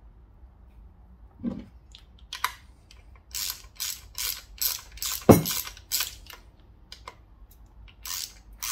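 A hand ratchet wrench worked back and forth while undoing a bolt on a motorcycle engine casing, its pawl clicking in short bursts about two or three times a second. There is a soft thump early on and one sharp metallic knock about five seconds in, the loudest sound.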